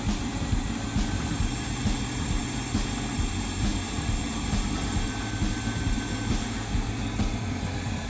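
Vacuum cleaner motor running steadily, drawing engine oil up a PTFE tube from the dipstick hole into a sealed poly tank.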